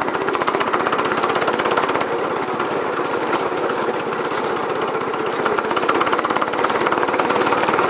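Go-kart engine running under throttle with a fast, rattling pulse as the kart drives around the track.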